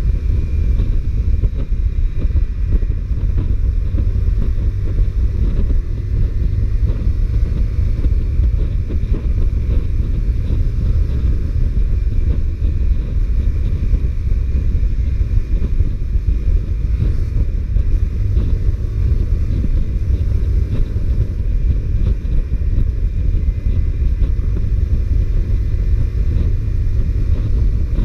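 Honda CBR125R motorcycle ridden at a steady pace: heavy wind rush on the microphone over its single-cylinder four-stroke engine, with no revving or gear changes standing out.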